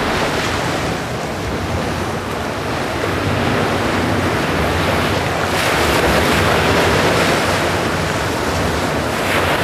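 Ocean surf washing in a steady rush, swelling about halfway through and again near the end.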